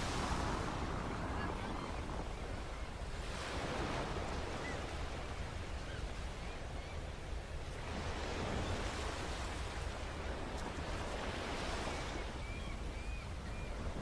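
Ocean waves breaking and washing up on a beach, a fresh surge coming in about every four seconds, with wind buffeting the microphone.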